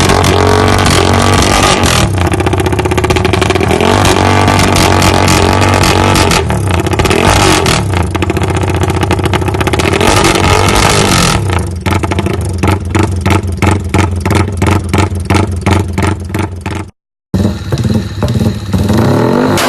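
Yamaha Y15ZR motorcycles with aftermarket exhausts revving, heard in several short clips cut together, the engine note rising and falling. About halfway through comes a run of quick, evenly spaced throttle blips, and a brief silence at a cut near the end.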